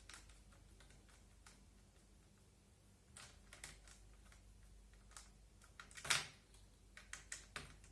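Scattered light clicks and taps of a tool on an airsoft MP5's parts as a nut is tightened onto a screw, with the loudest knock about six seconds in.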